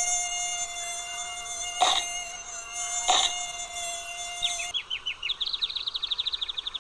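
Mosquito whining in a steady high tone, broken by two sharp hits about two and three seconds in. The whine cuts off near the end and a fast trill of short chirps follows.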